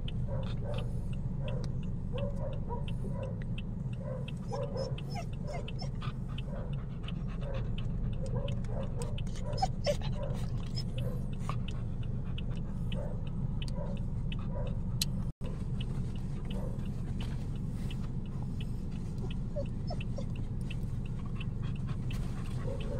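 Dog whimpering in short, repeated high whines, most of them in the first half, over the steady low rumble of a car cabin.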